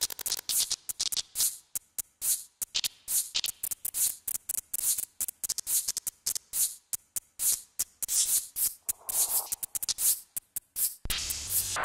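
Abstract electronic music made of a dense, irregular stream of sharp clicks and short hissy noise bursts. A brief hissy swell comes in towards the end, then a low droning layer.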